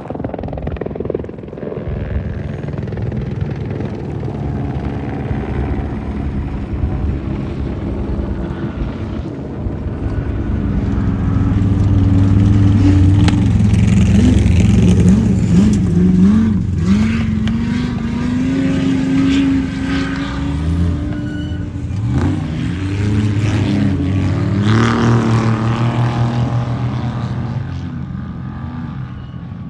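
Off-road race vehicle engines running hard and revving, the pitch climbing and dropping again and again. The engines are loudest about halfway through and again near the 25-second mark.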